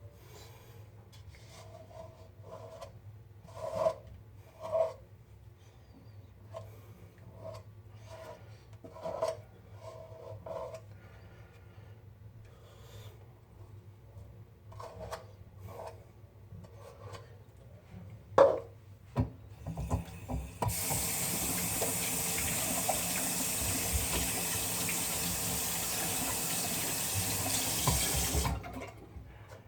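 Shaving brush whipping lather in a 3D-printed shave bowl, soft strokes about once a second, with one sharp knock. Then a water tap runs steadily for about eight seconds and shuts off.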